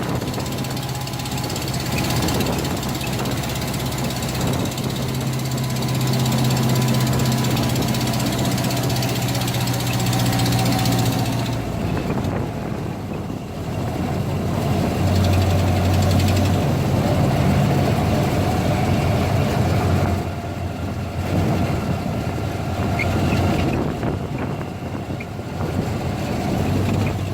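Vintage car engine running steadily, its note changing several times.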